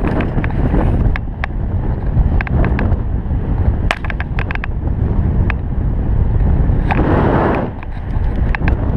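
Wind buffeting a GoPro's microphone while cycling, a steady low rumble with scattered sharp clicks and a brief louder hiss about seven seconds in.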